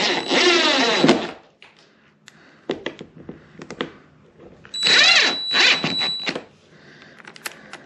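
DeWalt 20V cordless drill/driver driving two screws through a plastic box wall into plywood. Each is a motor whine of about a second and a half that rises and falls in pitch, one near the start and one about five seconds in. Light clicks of handling come between them.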